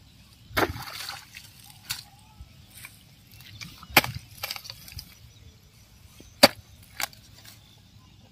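A hoe blade chopping into wet, muddy soil: about five sharp strikes at uneven intervals, the loudest about two-thirds of the way through.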